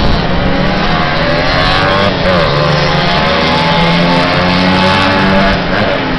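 Several small moped and pit-bike engines racing on a dirt track, their overlapping engine notes rising and falling as the bikes accelerate and pass.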